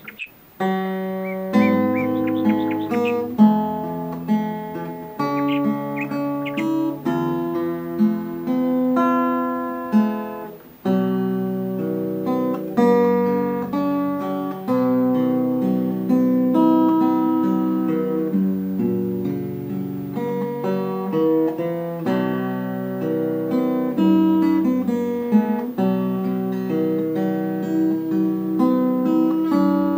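Background music of solo acoustic guitar, with plucked notes and strummed chords, starting about a second in.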